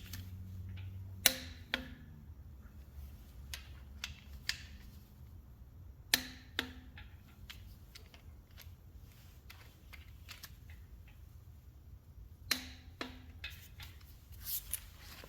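Click-type torque wrench breaking over at 35 ft-lb on the adapter-plate bolts: three times a pair of sharp clicks about half a second apart, with fainter ratchet ticks between them.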